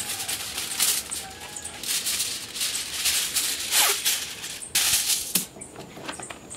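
Aluminium foil being pulled from its box and crinkled by hand: a string of irregular, crackling rustles, with a loud burst about five seconds in.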